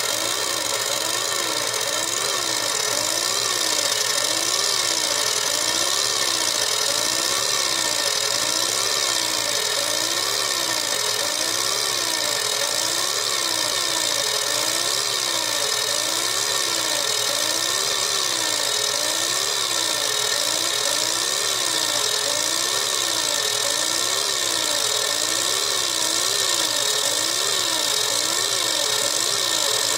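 Laser engraving machine at work, its motors whining in a repeating rise and fall of pitch about every second and a quarter, over a steady high hiss.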